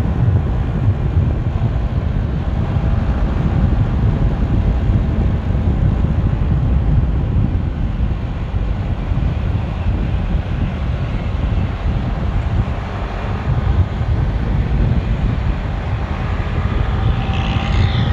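Wind rushing over the microphone of a moving motorcycle, with its engine running steadily underneath. A brief higher-pitched sound comes in near the end.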